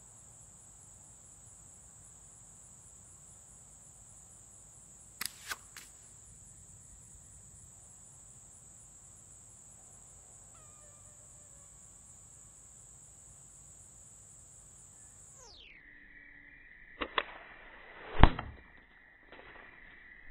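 Slingshot shots hitting a hanging-ball target: three quick sharp clicks about five seconds in, then two sharp cracks and one loud hit near the end as the target is struck and set swinging. Insects trill steadily underneath.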